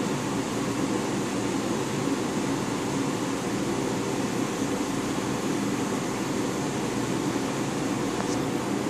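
Steady hum and hiss of a reef aquarium's running pumps and circulating water, even in level throughout.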